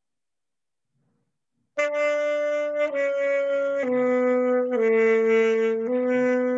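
Alto saxophone playing a slow exercise of held notes, each about a second long, starting about two seconds in: the notes step down four times, then back up one step.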